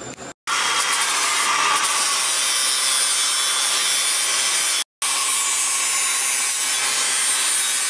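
Compact cordless angle grinder with an abrasive disc grinding against a truck's metal front axle housing, stripping paint to bare metal. A steady grinding hiss, cut off abruptly twice for a moment, about half a second and about five seconds in.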